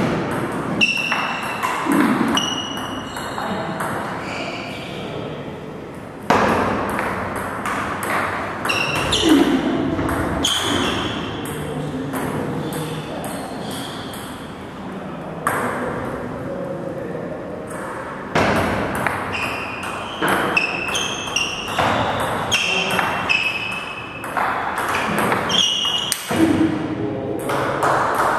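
Table tennis rallies: the ball clicking off the bats and bouncing on the table, each hit with a short ringing ping, in quick runs separated by brief pauses between points.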